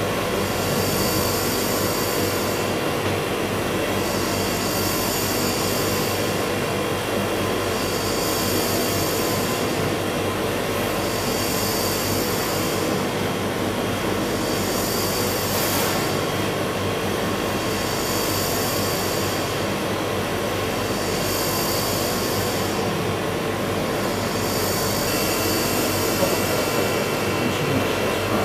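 Electric motor running steadily with a constant hum, its high hiss swelling and fading about every two seconds.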